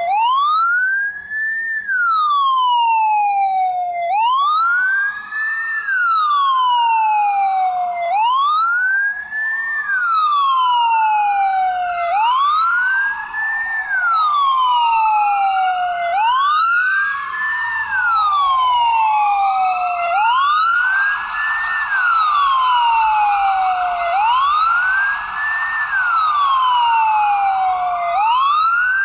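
Ambulance siren wailing. The pitch climbs quickly and falls away slowly, about once every four seconds, with a fainter second wail overlapping it.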